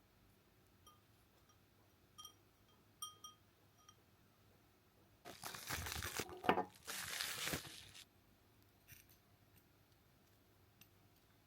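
A few light ringing clinks of hard objects, then about three seconds of crinkly rustling and tearing of wrapping material.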